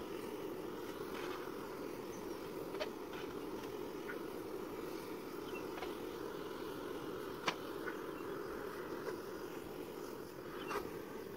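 Handheld butane gas torch on a mini gas canister running with a steady rushing noise while it lights a small stove. A few sharp clicks break in, the loudest about seven and a half seconds in.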